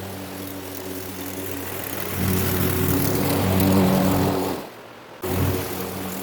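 Walk-behind gas rotary lawn mower with a grass bag, running steadily while cutting grass; it grows louder about two seconds in, then cuts out abruptly for about half a second near the end before carrying on.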